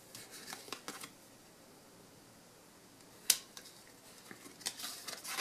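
Match Attax trading cards being handled: crisp rustling and sliding as cards are laid onto a fanned pile, with one sharp click a little past three seconds in.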